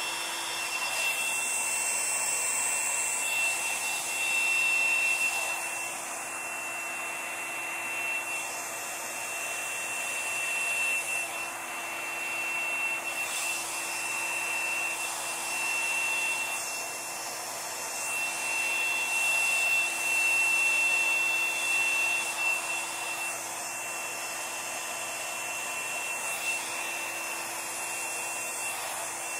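Handheld hair dryer running continuously with a steady high whine over its rushing air. It is held close to a canvas of wet acrylic paint, and its level swells and dips as it is moved.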